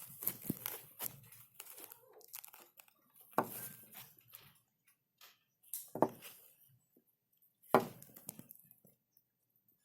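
Packaging being handled while unboxing a watch: irregular rustling and crinkling, with three louder crackles a couple of seconds apart.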